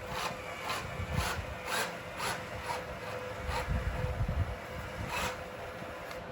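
Repeated short rasping scrapes of sand, about two a second and then fewer, over the faint steady whine of a small electric motor in a radio-controlled model.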